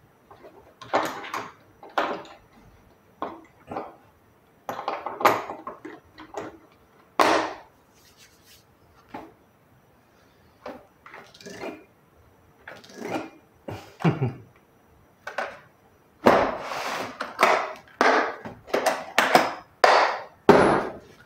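Metal sockets and wrenches being handled and set into the moulded plastic trays of a Scheppach TB 217 socket set: irregular clicks and clacks. Near the end the hard plastic case is shut and handled, giving a quick run of louder knocks and clacks.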